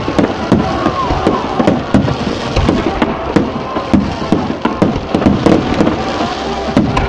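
Fireworks display with aerial shells launching and bursting in quick succession. Sharp bangs come about two to three a second over a continuous crackle.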